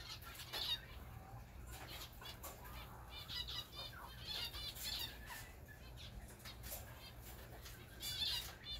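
Zebra finches calling in clusters of short, quickly repeated high notes, several times over, with wing flutters as birds move between perches.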